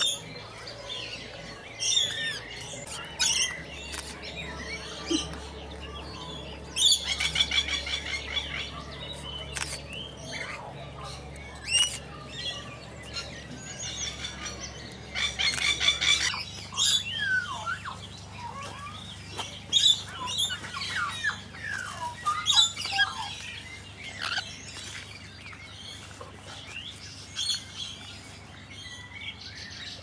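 Rainbow lorikeets calling: short high-pitched chirps and screeches scattered throughout, with two longer bursts of rapid, buzzy chatter, one about a quarter of the way in and one about halfway.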